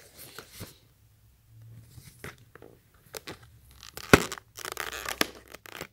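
Card-backed plastic blister pack being handled and pried open at the top edge: scattered crinkles and clicks, with a sharp snap about four seconds in and a short stretch of crackling just after.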